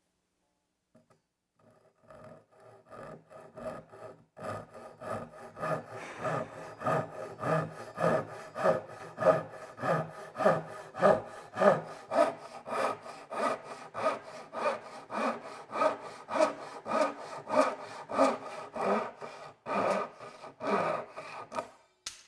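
Fine-tooth Japanese pull saw crosscutting the end of a solid-wood slab table leg, trimming it to length to take out a wobble. Light starting strokes build into a steady rhythm of about two strokes a second, then stop shortly before the end.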